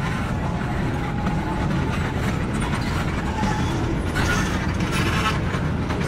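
Freight train's tank cars rolling slowly on the rails: a steady low rumble of wheels on track. Two short metallic rattles come about four and five seconds in.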